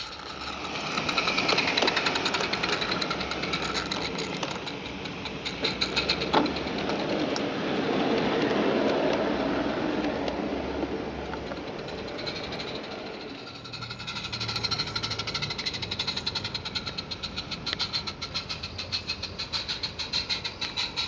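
Garden-scale live steam train running on outdoor track: wheels and small rolling stock rattling and clicking over the rails. The running sound swells as the coaches and van pass close, about eight to ten seconds in, and then gives way to quick, even ticking with a single sharp click partway through.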